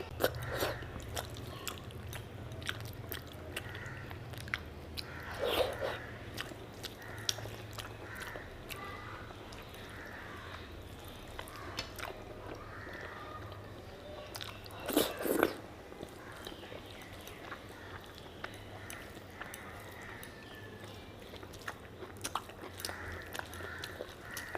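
A person chewing mutton fat curry and rice close to the microphone: a run of short wet mouth clicks, with two louder chews about five seconds in and about fifteen seconds in. A low steady hum runs underneath.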